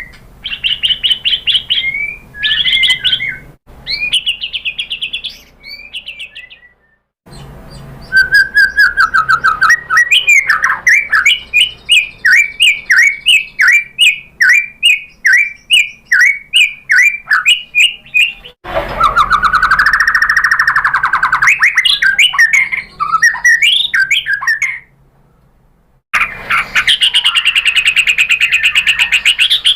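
White-rumped shama (murai batu) singing loud whistled phrases. They include a long run of rapid repeated notes, a drawn-out whistle and a fast trill near the end, broken by brief pauses.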